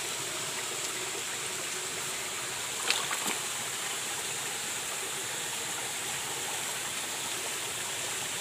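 Shallow stream water running steadily over a rocky bed. About three seconds in, a few sharp knocks or clicks stand out briefly above the water.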